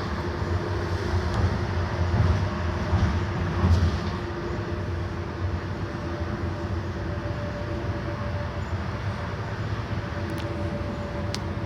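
Mercedes-Benz OF 1721 bus running on the road: a steady engine and road rumble with a faint steady whine above it. A couple of light clicks come near the end.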